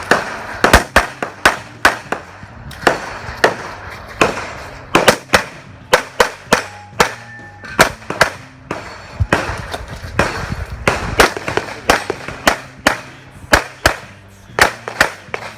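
Rapid handgun fire as a shooter runs a USPSA competition stage: dozens of sharp shots, many in quick pairs, broken by short pauses between strings.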